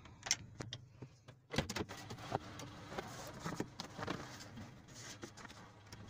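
Van engine idling with a low steady hum, under a series of clicks and knocks from handling inside the cab, the loudest knock about one and a half seconds in.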